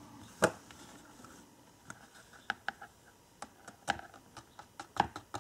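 Scattered light clicks and taps of a flexible plastic embossing-powder tray (Snappy Tray) being handled and bent to pour loose embossing powder back toward its jar. The sharpest clicks come about half a second in and again near the end.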